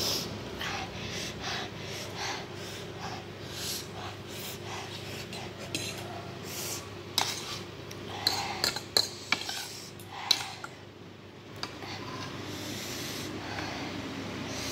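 A fork and spoon clink and scrape against a bowl of extra-spicy instant noodles as they are stirred and lifted, with a cluster of sharp clinks a little past halfway. Repeated short, sharp breaths and sniffs from the chili burn run alongside.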